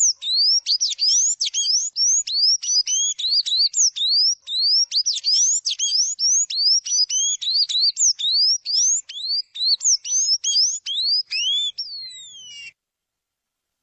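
A songbird singing a fast, continuous run of rising whistled notes, about three to four a second, ending in one long falling whistle before stopping abruptly.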